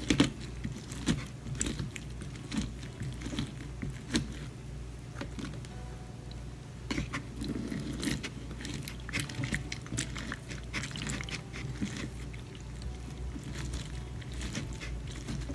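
Lemon halves pressed and twisted on a plastic hand citrus reamer: irregular wet squelching and scraping crackles as the juice is squeezed out, over a steady low hum.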